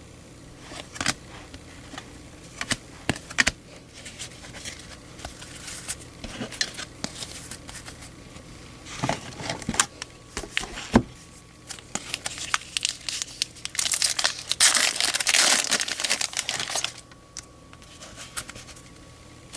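The foil wrapper of a 2013 Topps Series 2 hobby pack crinkling and being torn open. Scattered light crackles build to about three seconds of dense crinkling in the latter part.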